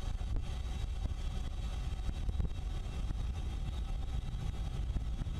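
Steady low rumble of a warship under way at sea, with no sharp bangs.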